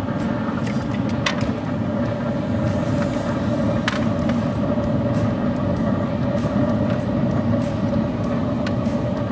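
Steady mechanical hum with a constant tone, most likely the running wood pellet grill's fan. A couple of light clicks about a second in and about four seconds in.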